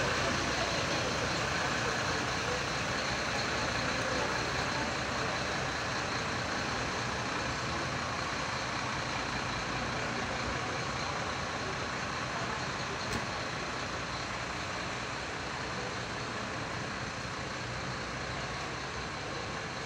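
Steady drone of idling city buses and traffic at a bus station, slowly getting quieter, with one brief click partway through.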